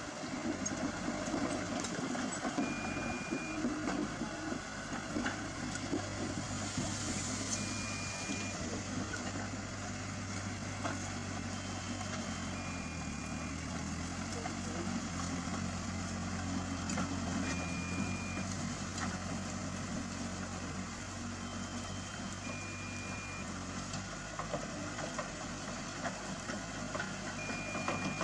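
A heavy diesel engine running steadily, with a short high beep repeating about every five seconds.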